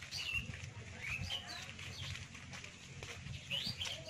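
Small birds chirping with short calls that slide up and down in pitch, several in quick succession, over a low rumble with a few dull thuds.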